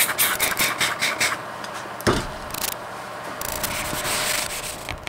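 Rubbing and wiping right on the camera's lens, heard up close through the camera itself. Quick scrubbing strokes come first, then steadier rubbing, with a thump about two seconds in.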